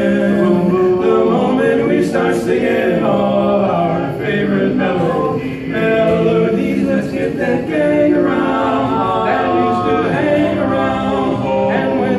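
Male barbershop quartet singing a cappella in four-part close harmony, holding long chords that shift every second or so.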